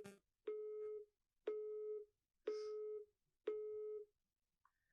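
Mobile phone call busy tone: a steady mid-pitched beep, about half a second on and half a second off, four times. It follows a 'subscriber is busy' announcement and signals a rejected call, which the caller takes as his number being blocked.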